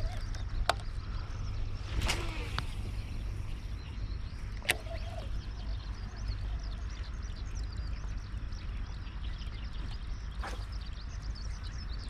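Outdoor riverbank ambience: a low steady rumble with faint birds chirping, broken by a few sharp clicks from the baitcasting rod and reel being worked.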